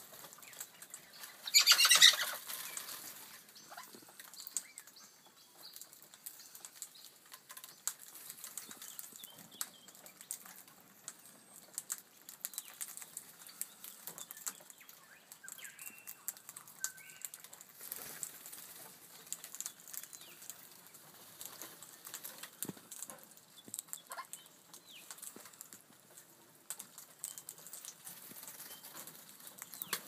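King parrots feeding on seed: many light clicks and taps as beaks crack seed and work on the wooden rail, with one loud brief flurry about two seconds in.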